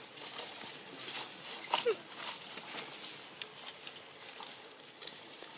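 Dry leaf litter crackling and rustling as macaques shift and crawl on it, with one short squeak about two seconds in.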